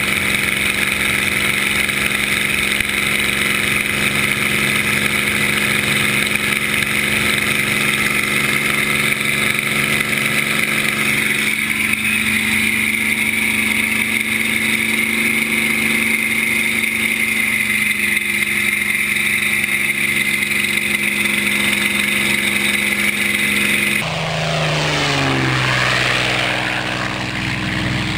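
Spitfire's Rolls-Royce Merlin V12 engine running steadily, heard from inside the cockpit. About 24 seconds in the sound switches to the Spitfire flying past, its engine note falling in pitch as it goes by.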